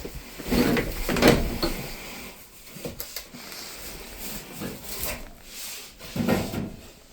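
Goat doe in labour crying out during contractions: a strained call about a second in and another near the end.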